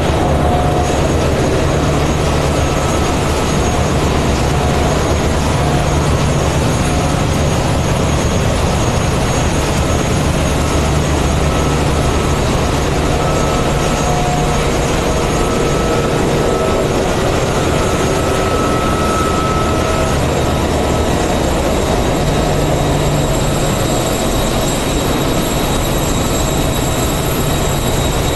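Loud, steady machinery din of a ship's engine room running, with engines, pumps and ventilation blending into one continuous noise. A low hum sits under it, with a few faint high whines.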